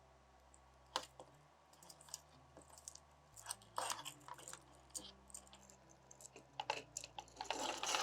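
Faint, scattered light clicks and rustles of a metal banding strap being handled as its ends are linked together, with one sharp click about a second in and busier clicking in the second half.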